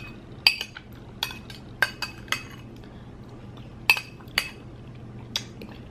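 Metal spoon clinking and scraping against a bowl as the bowl is tilted and the spoon scoops from it: about ten sharp, irregular clinks.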